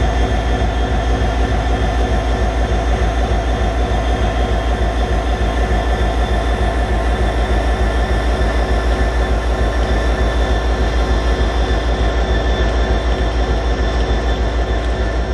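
Large diesel engine running steadily at idle, a deep even throb pulsing several times a second with a steady hum of tones over it.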